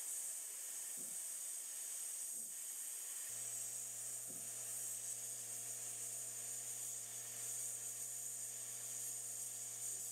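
Steady hiss of a sandblast gun in a blast cabinet, blowing abrasive against a rusty pressed-steel toy truck bracket and stripping it to bare metal. A low steady hum runs underneath, joining about three seconds in.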